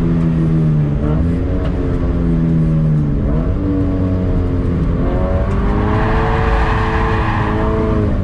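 Toyota GT86's stock 2.0-litre flat-four boxer engine, with a Tomei titanium catback exhaust, heard from inside the cabin on track. Its pitch climbs and drops several times as the car accelerates and slows, with sharp jumps about 3 and 5 seconds in. A rushing noise swells over the last couple of seconds.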